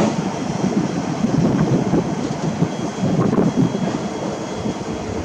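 Strong gusts of wind buffeting the microphone, over a loaded ballast train behind an SSR RL-class diesel locomotive rolling slowly past, its wagons clattering by.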